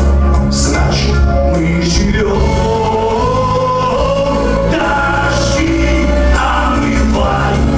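Live chanson band playing: a male singer holds a long, wavering sung line over electric guitar, keyboards, bass and drums.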